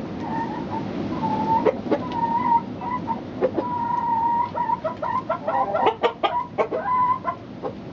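Domestic chickens clucking: hens give repeated drawn-out calls, then several birds break into a burst of quick, sharp clucks for a second or two past the middle.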